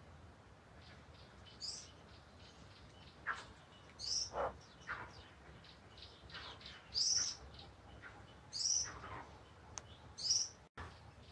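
Birds calling in trees: about five loud, short, high chirps spaced a second or two apart, with fainter chirps and a few lower whistles that slide downward between them.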